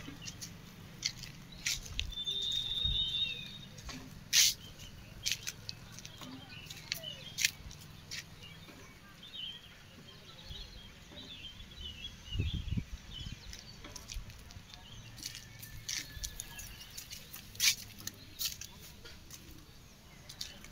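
Outdoor village ambience: faint bird chirps with scattered sharp clicks and a low steady hum underneath.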